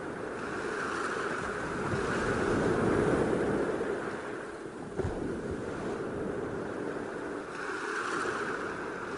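Ocean surf washing onto a sandy, rocky shore, with wind. The wash swells to its loudest about two to three seconds in and surges again near the end, with a brief thump about five seconds in.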